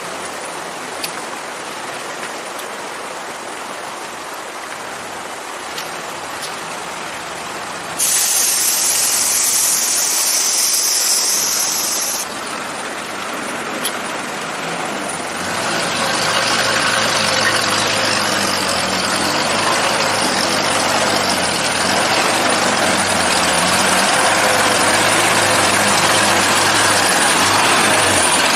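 Steady noise at first, then about eight seconds in a loud hiss that lasts some four seconds and cuts off sharply. From about halfway, the ZIL-164 truck's 5.5-litre six-cylinder side-valve petrol engine runs with a low, even drone, slowly getting louder.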